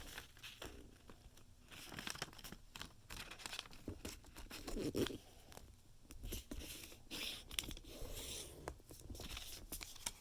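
A square of origami paper being folded in half and creased by hand: irregular rustling and crinkling in short bursts, with small ticks of the paper against itself.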